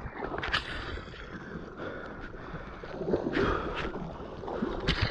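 Seawater splashing and sloshing close to a helmet-mounted camera, with several short knocks and splashes as a swimmer struggles in the water.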